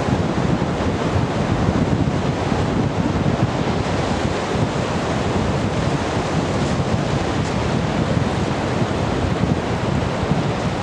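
Surf breaking on a sandy beach, a steady wash of waves, with wind buffeting the microphone as a low rumble underneath.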